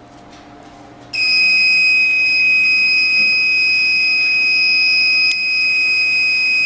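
Built-in alarm buzzer of an MSR SPC carbon monoxide gas detector starting about a second in and sounding one steady, high-pitched tone: the sensor has picked up carbon monoxide from incense smoke and the alarm has tripped. A brief click a little past halfway.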